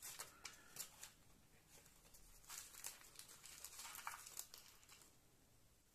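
Faint rustling and light clicks of small model-kit parts being rummaged through in a box, in short scattered bits.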